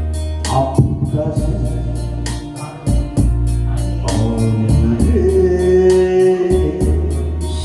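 Instrumental interlude of a song's backing music: a steady drum beat with regular hi-hat ticks, a bass line, and a held melody line.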